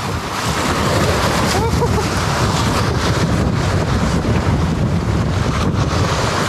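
Wind buffeting the microphone over the wash of sea waves breaking on shoreline rocks, a loud, steady rushing noise.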